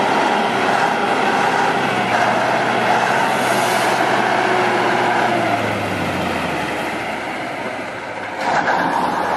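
KrAZ heavy truck's diesel engine running under load as the truck pushes through an icy river, a steady drone whose note drops and fades a little past halfway. Near the end a sudden, louder rushing noise comes in.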